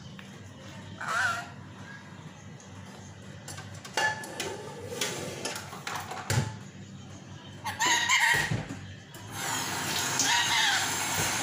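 Yellow ringneck parakeet giving short squawks, about a second in and louder about eight seconds in, with a few sharp beak taps in between as it pecks at an air fryer. About nine seconds in, a steady hiss starts and keeps going, with more squawks over it.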